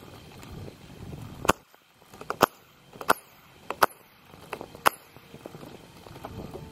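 About five sharp metallic clinks, roughly a second apart, each with a short ring: steel differential-cover bolts dropping onto a concrete floor as they are backed out.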